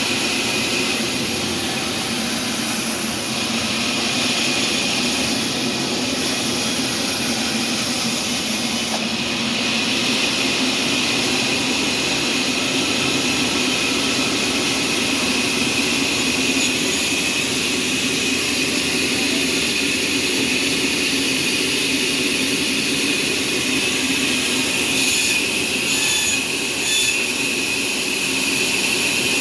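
Sawmill machinery running steadily with a constant high whine, a few short louder bursts near the end.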